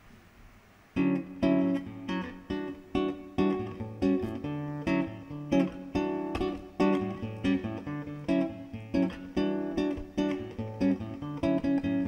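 Acoustic guitar playing a song's intro: rhythmic strummed chords starting about a second in.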